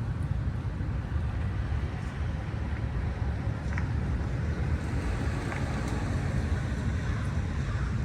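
Wind buffeting the microphone: a steady, uneven low rush of noise.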